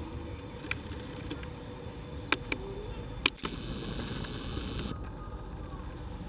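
Steady low rumble of a train at a railway station, with a few sharp clicks, two of them close together a little past the middle.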